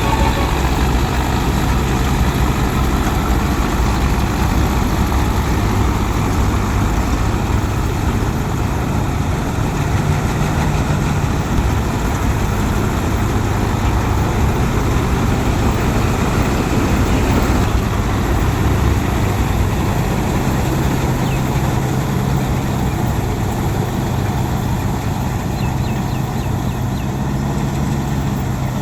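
Heavy farm-machinery diesel engine running steadily, a low engine hum under a loud, even mechanical noise.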